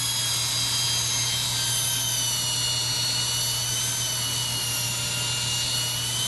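A power tool running at a steady speed: a high whine that wavers slightly in pitch, over a loud hiss and a low hum.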